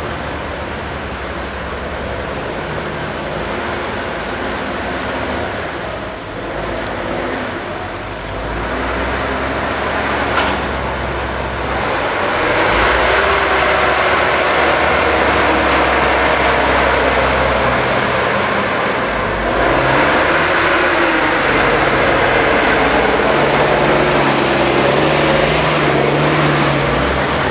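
Diesel engines of articulated forestry skidders working under load as they climb a steep, muddy slope. The engine note rises and falls with the throttle, and the sound grows louder about halfway through.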